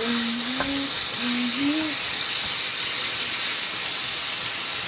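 Bacon sizzling in a frying pan as its fat renders out, a steady high hiss.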